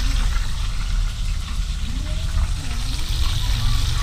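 Whole trout deep-frying in hot oil in a skillet: a steady sizzling hiss, with a low rumble underneath.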